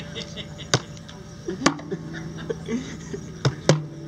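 Acoustic guitar lying on the ground, its strings slapped about four times by a small child's hand, the last two hits close together. Each sharp hit leaves the strings ringing on a low note.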